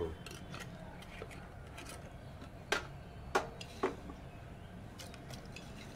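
A spoon clinking three times on kitchen utensils, about half a second apart, over quiet room tone, as sugar is spooned in for tea.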